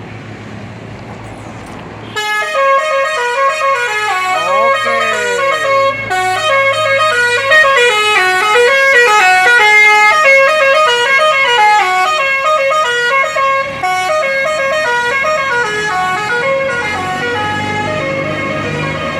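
A tour bus's telolet horn, a multi-note air horn, playing a long stepped tune over the running engine. It starts about two seconds in, with a few sliding tones about four seconds in.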